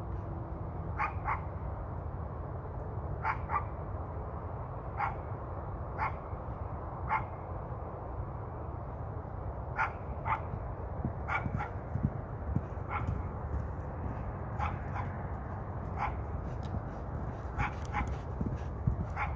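A dog barking repeatedly: short single barks at irregular intervals, some in quick pairs, over a steady low rumble.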